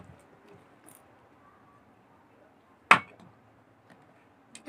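A single sharp knock of tableware against the table about three seconds in, over quiet room tone; the dying tail of a similar knock is heard at the very start.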